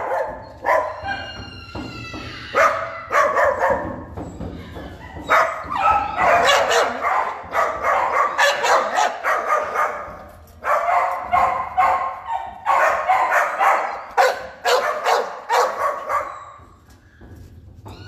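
Dogs in shelter kennels barking in rapid, repeated barks with only brief pauses, with a whining cry about a second in; the barking dies down near the end.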